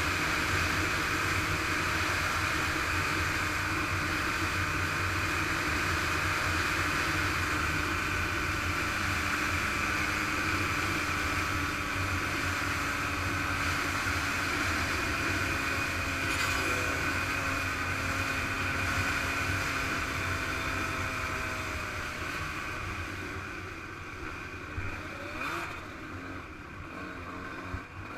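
Yamaha YZ125 two-stroke single-cylinder motocross engine running at a fairly steady pitch with a noisy haze, heard from the bike's camera; it fades down over the last several seconds, with a couple of brief knocks near the end.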